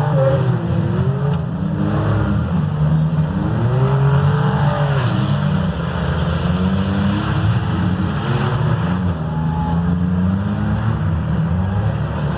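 Engines of several demolition derby cars running and revving unevenly, their pitches rising and falling as the cars drive around the arena.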